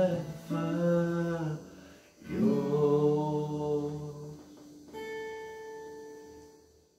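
A man singing the last held notes of a worship song over a strummed acoustic guitar, then a final guitar chord rings on its own and fades out near the end.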